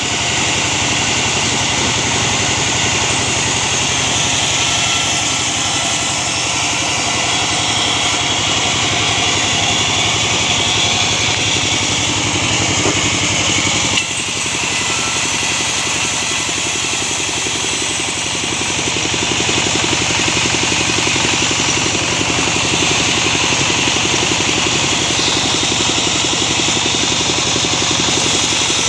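Band sawmill machine running steadily, a continuous mechanical drone that dips briefly about halfway through and runs a little louder in the last third.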